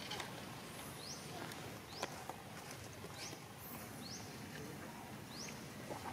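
A bird repeating a short, high, rising chirp about once a second, faint against background hiss, with a couple of higher notes and a few light clicks.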